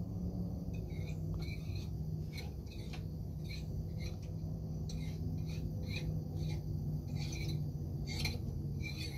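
Birds chirping in short, irregular calls across the morning shoreline, over a steady low hum.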